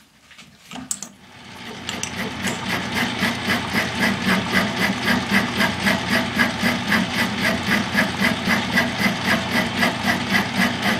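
A metal lathe starts up about a second and a half in and runs with a cast iron valve body casting spinning in its four-jaw chuck. It makes a steady, rhythmic machine beat about four times a second.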